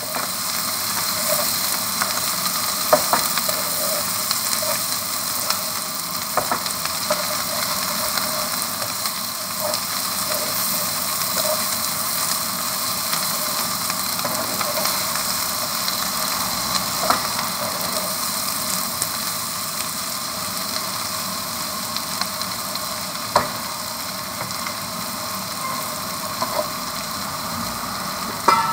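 Prawns, chopped onion stalks and potato sizzling as they fry on high heat in a black wok, stirred with a wooden spatula that knocks against the pan now and then.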